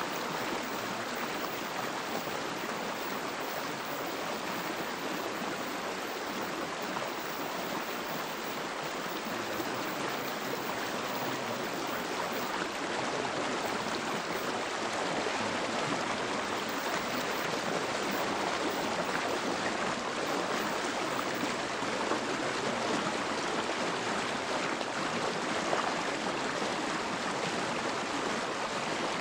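Steady rushing of a flowing stream, an even wash of running water with no breaks or changes.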